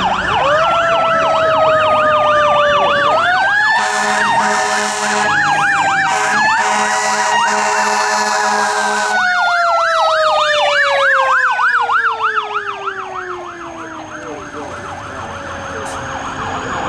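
Fire engine sirens sounding together: a fast yelp warbling over a slower wail, with a loud steady blare over them for about five seconds in the middle. After that the yelp stops around twelve seconds in and the wail winds down slowly in pitch.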